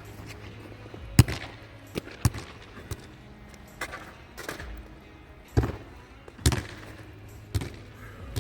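Basketball bouncing on a hard surface: about ten sharp bounces at uneven intervals, over a low steady hum.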